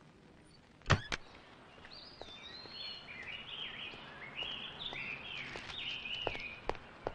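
Birds chirping in a run of short rising and falling calls, after two sharp knocks about a second in; a few light clicks near the end.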